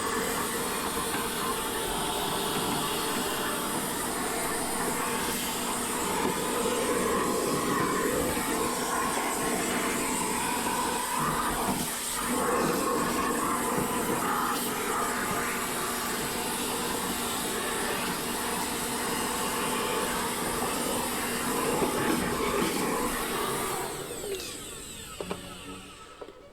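Vacuum cleaner running steadily as it sucks lint out of an opened dryer cabinet, then switched off near the end, its motor winding down.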